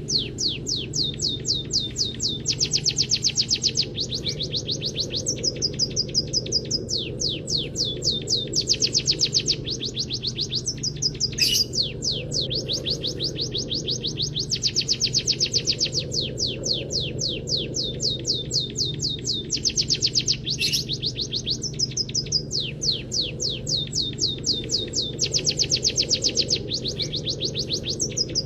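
Songbird training recording of small finches, munias and canary, singing fast series of high chirps in phrases, with the same sequence coming round again about every nine seconds over a steady low hum.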